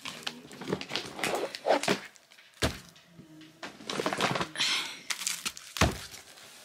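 Cardboard boxes of butter being set down and stacked one on another: a series of separate thunks and knocks with scuffing of the boxes between them.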